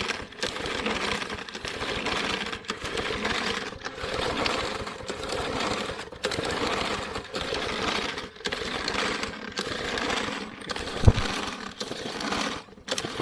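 Briggs & Stratton 125cc lawnmower engine being cranked by repeated recoil-starter pulls, about one pull a second, each a brief mechanical rattle that stops short; the engine does not catch. A single heavy thump about eleven seconds in.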